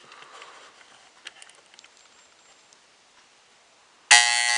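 A few faint clicks, then about four seconds in the alarm buzzer of a 1970s GE model 7334-3 electric analog alarm clock starts suddenly: a steady, pretty loud buzz.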